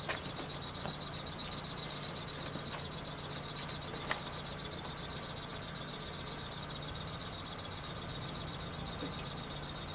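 Steady street background noise with a faint low hum and two short clicks, one at the start and one about four seconds in.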